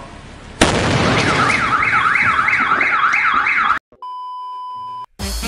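A loud firework blast about half a second in, followed by a car alarm wailing up and down nearly three times a second. It cuts off abruptly, and a steady test-pattern beep plays for about a second.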